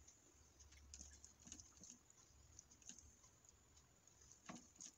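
Faint, soft clicking and squishing of fingers mixing curry into biryani rice on a plate, with a louder click about four and a half seconds in.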